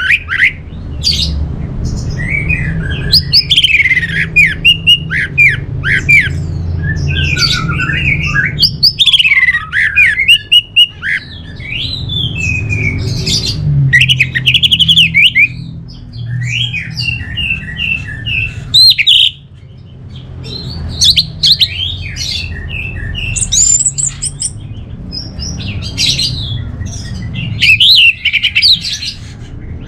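Orange-headed thrush singing a long, varied song of quick whistled and twittering phrases, with only brief pauses, over a steady low hum.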